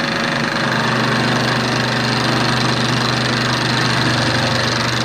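Turret milling machine running with its spindle turning a 20 mm end mill, cutting the end of a bright steel bar down to length: a steady motor hum under a constant grinding hiss of the cut.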